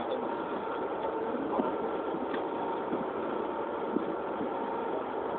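Fishing boat's engine running steadily at idle under a steady hiss of wind and water, with a few faint clicks.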